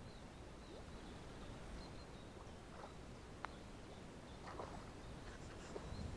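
Quiet rural outdoor ambience over calm water, with faint distant bird chirps, a few soft ticks and one sharp click about three and a half seconds in.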